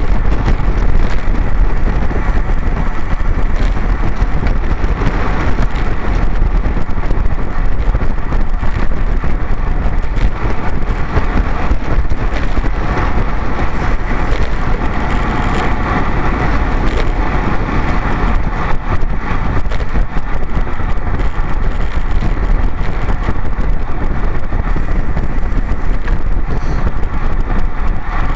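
Steady wind rushing over the microphone of a camera on a road bike ridden at race pace, with a deep, constant buffeting.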